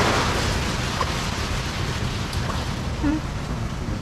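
Steady rushing noise of wind buffeting the microphone, with the wash of surf behind it.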